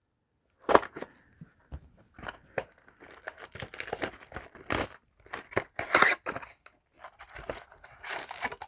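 Plastic and foil packaging of Yu-Gi-Oh! card boxes being torn open and crinkled by hand: irregular crackles and snaps, with a denser stretch of crinkling in the middle and again near the end.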